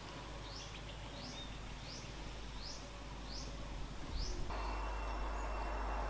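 A bird giving a short, thin, high rising call over and over, about six times a little under a second apart, over a steady hiss of field noise. Just past four seconds the calls stop and a louder, even rushing noise takes over.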